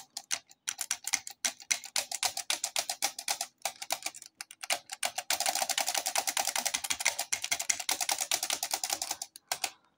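Olympia SG1 typewriter's mechanism, with its carriage removed, clicking in quick runs: scattered clicks at first, then a long dense run of fast clicks from about five seconds in to about nine.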